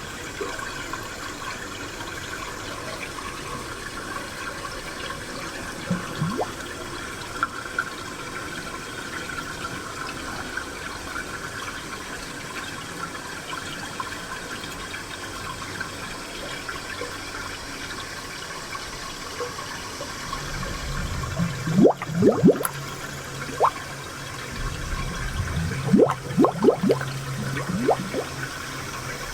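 Spring water flowing steadily, with bursts of bubbling, gurgling plops in the last third.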